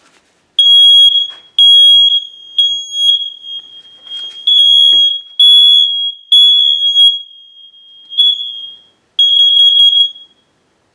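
Smoke alarm's piezo horn sounding on test: a loud, high-pitched beep repeating in the three-beep evacuation pattern (three beeps, a pause, then three more), stopping near the end. It sounds on test, so this alarm is working.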